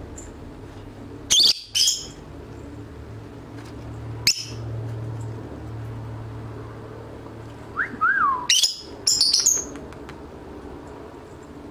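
Pet parrots calling: two sharp, shrill chirps about a second and a half in, another around four seconds, a short whistled note that falls in pitch near eight seconds, then a quick run of sharp chirps.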